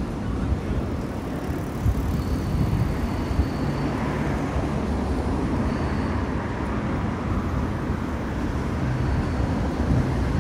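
Steady road traffic noise on a busy city street: cars and engines passing.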